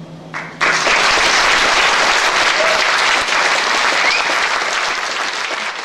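Audience applause breaking out suddenly about half a second in, as the last held synthesizer tone dies away at the end of the piece.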